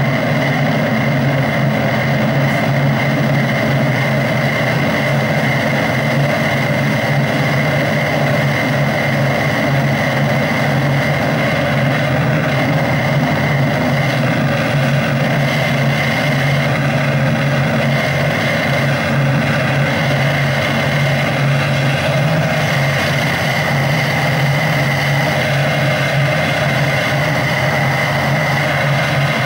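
Steady, dense electronic drone played live from a laptop, holding a low hum under a constant noisy wash, with no change in level throughout.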